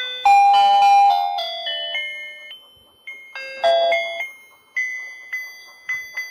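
Battery-powered toy fishing game playing its electronic beeping melody, a simple tune of single chime-like notes. A plastic bag of toy fish crinkles briefly about half a second in and again near four seconds.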